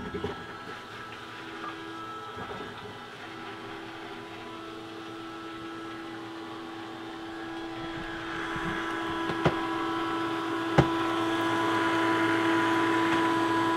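Small DC electric bilge pump in a bucket, switched on and humming steadily as it pushes fresh water through the marine diesel's raw-water cooling circuit to flush out the descaler. A rush of water grows louder after about eight seconds, with two sharp clicks.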